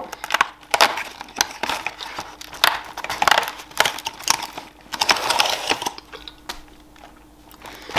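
Cardboard advent calendar being handled close to the microphone: its paperboard window flaps pressed and folded back, giving a run of short crinkles and taps, with a longer rustle about five seconds in.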